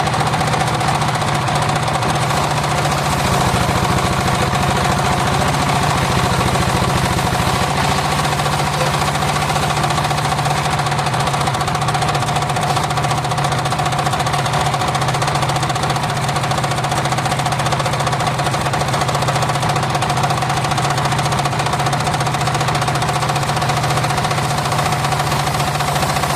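Homemade engine-driven circular sawmill running steadily: its engine chugs at an even rate under a constant hum from the spinning saw.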